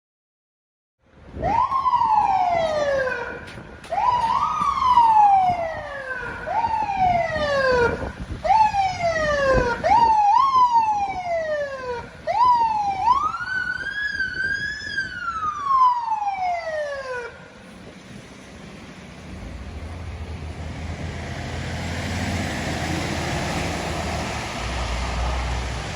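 Emergency siren on FDNY's Field Communications truck sounding in a series of short swoops, each rising quickly and falling away slowly. The siren stops about two-thirds of the way in, leaving a steady rush of engine and road noise that slowly grows louder.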